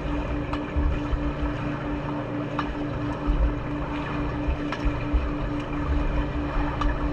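Rumbling water noise, gusting unevenly, with a steady pulsing hum underneath and a few faint clicks.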